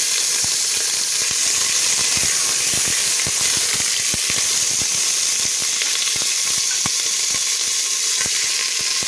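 Mutton pieces searing in hot oil with fried onions in a pressure cooker: a loud, steady sizzle dotted with many small crackles and pops as the meat is stirred with a wooden spoon.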